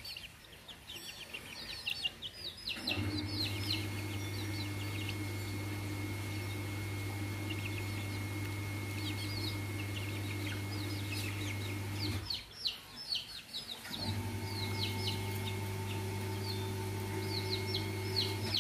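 Young bantam chicks peeping: many short, high, falling peeps in quick runs. A steady low mechanical hum comes on about three seconds in, breaks off for about two seconds near the twelve-second mark, then comes back.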